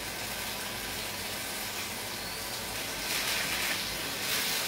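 Salmon searing in a frying pan: a steady sizzle, briefly louder in two short spells near the end.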